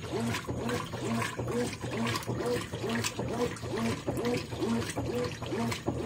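Consul CWE13AB 13 kg top-load washing machine agitating at agitation level 1 with the tub filled to water level 3: the motor hums steadily and swings back and forth in a quick rhythm, two to three strokes a second, with water sloshing around the clothes.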